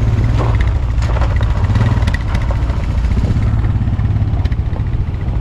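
Engine running steadily at low revs, a loud low rumble with a fast even pulse, with a few faint knocks and rattles in the first couple of seconds.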